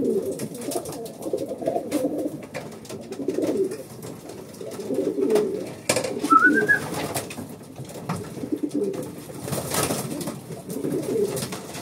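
Racing pigeons cooing over and over in a small loft, in low warbling phrases. About six seconds in there is a short, higher rising squeak, and near the end a brief burst of noise.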